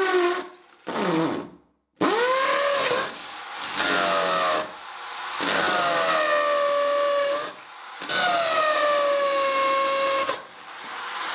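Electric drill boring into a brick wall in a series of short bursts. Each time the motor whine jumps up and then sags in pitch as the bit bites. With the newly fitted black bit it cuts easily, "like butter".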